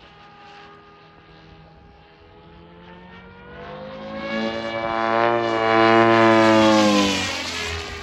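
Custom Comet EVO electric RC speed helicopter making a fast pass: the whine of its Xnova motor and rotor grows louder over a few seconds, is loudest around six seconds in, then drops in pitch as it goes by and fades.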